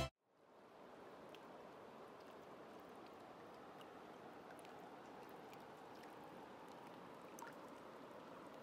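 Faint shallow water rippling and lapping over gravel, with a few tiny ticks of water; it comes in about a second in, after a moment of silence.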